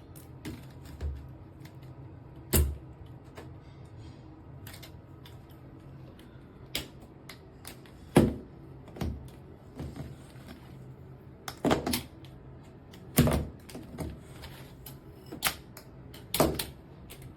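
Irregular hard clicks and knocks as a handheld shower head is handled and pushed at a fitting that it does not fit, over a low steady hum.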